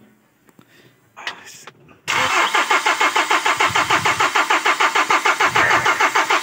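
Kia K2500's D4CB common-rail diesel engine cranking on the starter without catching. Quiet for about two seconds, then a steady, evenly pulsing crank starts. It is the hard-start fault the owner puts down to a possible large injector back-leak that keeps the fuel rail from building pressure.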